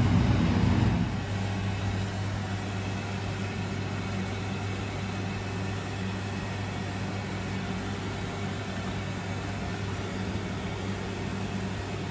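Steady hum of a gas stove burner and kitchen ventilation under a saucepan of sauce coming to the boil. The hum drops a step in level about a second in, then holds even.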